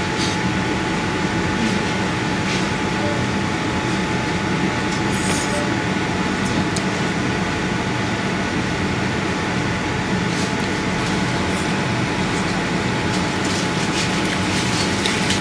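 Steady mechanical hum and hiss with two constant high tones, unchanging in level, with a few faint clicks.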